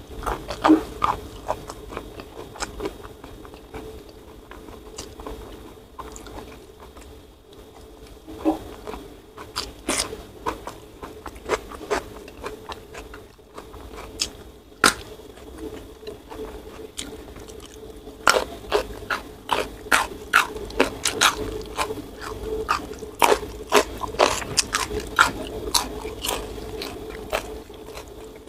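Close-up eating sounds: a person chewing mouthfuls of rice and side dishes eaten by hand, a run of short mouth clicks and crunches. They are sparse at first and come much faster in the last ten seconds or so.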